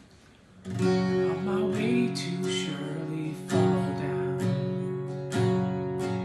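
Acoustic guitar strumming chords, starting just under a second in, with a fresh strum every second or so.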